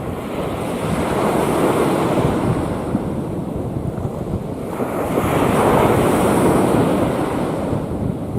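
Sea waves breaking and washing in, the surf swelling twice: once about a second in and again more strongly about five seconds in.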